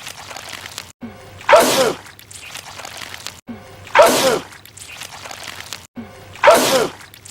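A man sneezing loudly, the same sneeze repeated as a loop: three identical sneezes about two and a half seconds apart. Each starts with a short drawn-in 'ah' and ends in a sudden burst that dies away quickly.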